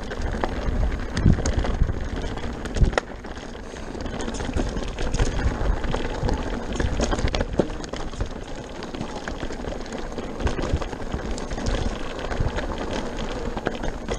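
Pivot Mach 429 Trail full-suspension 29er mountain bike riding down rocky dirt singletrack: tyres crunching over gravel and stones, with a constant rattle of clicks and knocks from the bike and a low rumble. Two sharper knocks stand out about one and three seconds in.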